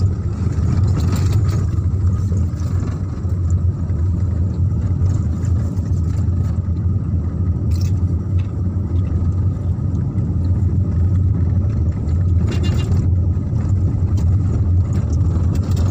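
Steady low rumble of a moving Daihatsu car heard from inside the cabin: engine and road noise while driving.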